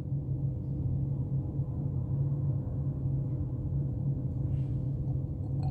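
Steady low hum of room background noise, with a faint brief rustle about four and a half seconds in and a small click near the end.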